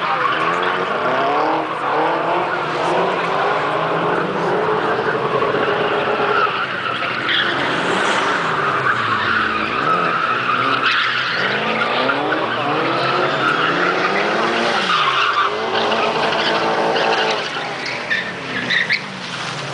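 Drift cars, a BMW E30 and a Nissan, revving hard through a tandem run, the engine pitch rising and falling again and again as the tyres squeal and skid through the slides. The sound eases off somewhat near the end.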